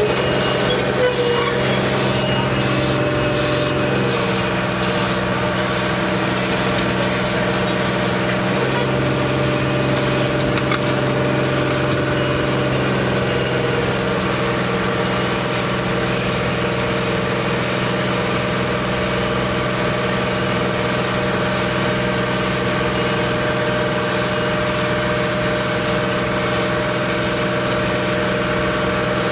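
Sheet-piling rig's engine running steadily, its note shifting a few times in the first half.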